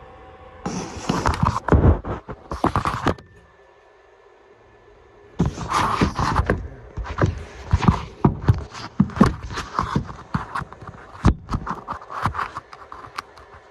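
Close, loud scraping, rubbing and irregular knocks, like something being handled right at the microphone: a short stretch, a pause of about two seconds, then a longer stretch of scrapes and sharp knocks.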